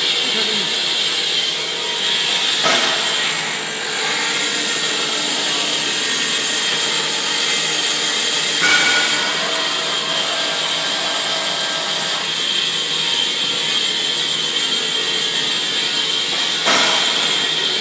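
Horizontal foam splitting machine running steadily as it slices a PE foam sheet into layers: a continuous high hiss with a steady whine underneath.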